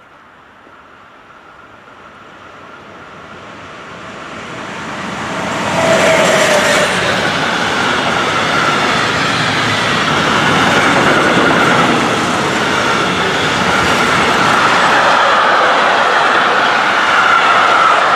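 Container freight train approaching and passing close by. The sound grows louder over the first six seconds, then the wagons roll past in a loud, steady rumble of wheels on rail with a thin high whine running through it.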